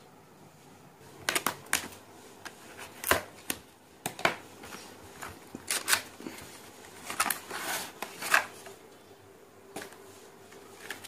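Cardboard retail box of a portable hard drive being handled and opened: irregular sharp rustles, scrapes and clicks as the top flap is lifted and the clear plastic tray inside is pulled out, busiest in the middle and thinning out near the end.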